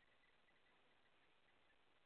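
Near silence: a low steady hiss with faint, irregular high ticks.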